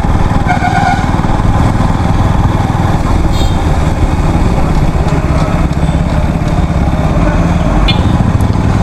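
Motorcycle engine running steadily at low speed in town traffic, heard from the rider's helmet-mounted camera. A short beep sounds about half a second in.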